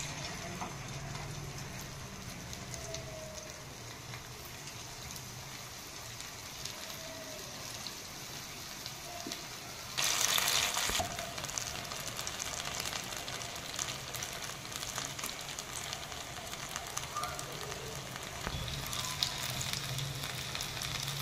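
Potato roll samosas deep-frying in hot oil: a steady sizzle that swells briefly about halfway through.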